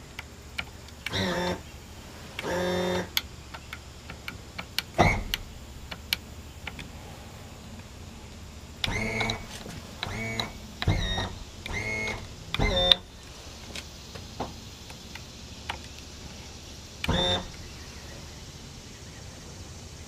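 Electric power trim motors of outboard engines whining in short bursts, about nine times, as the trim switch on a Yamaha 704 remote control lever is pressed, with small switch clicks in between. The lever's trim switch is faulty: it trims down but will not trim up.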